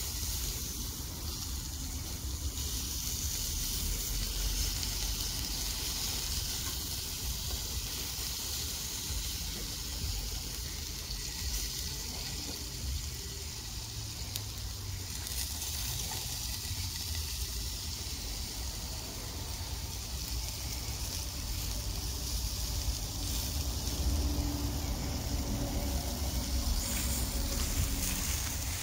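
Chicken skewers sizzling over a charcoal grill: a steady hiss. In the last few seconds the grill's hand-cranked fan blower is turned, adding a low whir and making it louder.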